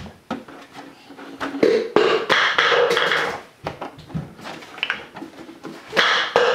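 Taps and knocks of a plastic gallon milk jug being picked up and its screw cap taken off. There are louder bursts of noise about two seconds in and again near the end.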